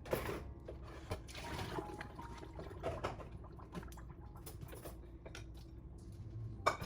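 Water running in a small room, with a few light knocks.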